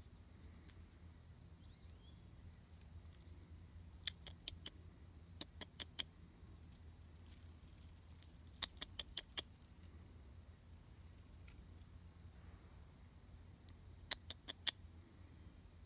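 Insects chirring steadily, with four quick bursts of four or five sharp, high clicks.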